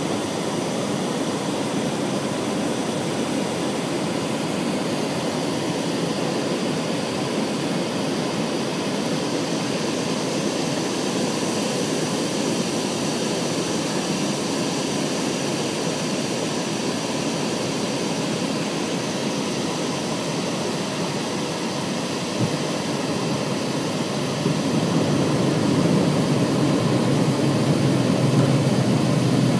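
Steady cabin noise of a Learjet descending on approach: the whine and rush of its jet engines and the air streaming past the fuselage, heard from inside the cabin. About 24 seconds in it becomes louder and deeper.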